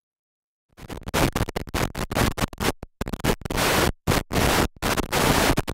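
Loud harsh noise that cuts in and out in short choppy bursts, starting under a second in.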